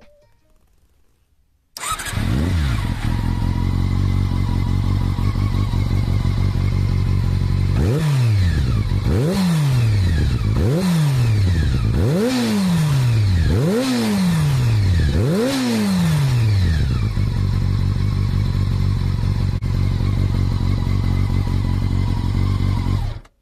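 Honda CBR400RR (NC23) inline-four idling through an OVER RACING slip-on silencer, cutting in abruptly about two seconds in. Near the middle the throttle is blipped six times in a row, about every second and a half, each rev rising sharply and falling back to idle, before it settles into a steady idle again.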